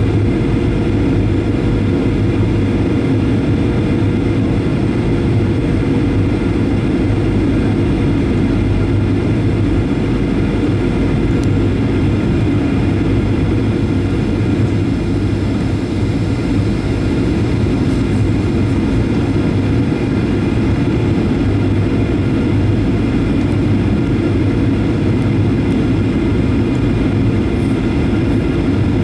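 Steady cabin drone of a Boeing 737-800's CFM56-7B turbofan and rushing airflow, heard from a window seat beside the engine during the approach descent, with several faint steady tones over it.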